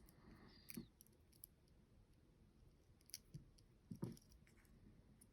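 Faint handling of small plastic connectors and wires: a few scattered light clicks, with a louder click and soft knock about four seconds in.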